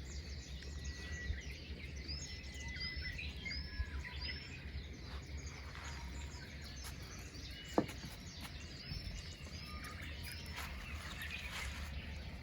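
Songbirds chirping and calling together, a busy racket of short repeated notes and whistles, with one brief louder downward-sweeping call about eight seconds in.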